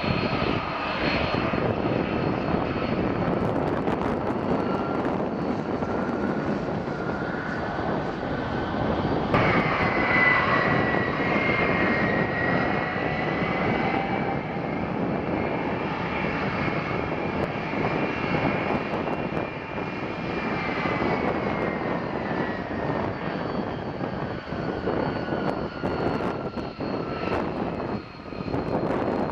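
Airbus A330-200 turbofan engines running at low thrust as the jet taxis and lines up: a steady roar under a high fan whine that drifts slowly in pitch. A sharper whine sets in about nine seconds in and eases off near the end.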